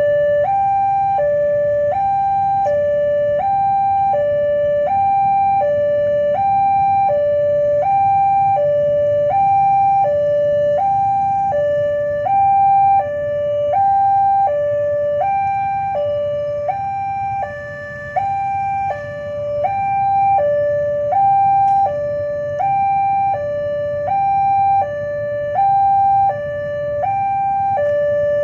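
Two-tone hi-lo siren, alternating evenly between a higher and a lower note, each held for about two-thirds of a second, over a low rumble.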